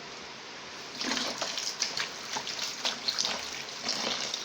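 Warm water splashing and sloshing in a container as soap is mixed in for a cleaning solution: a steady wash of water at first, then irregular splashes from about a second in.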